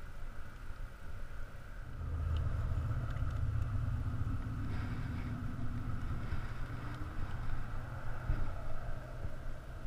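Low engine rumble of a passing motor, swelling about two seconds in and running on for several seconds.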